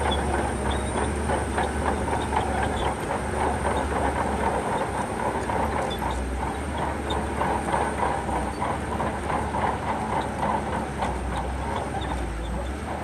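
Shantui crawler bulldozer working: its diesel engine runs with a steady low drone while the steel tracks clank and clatter without a break.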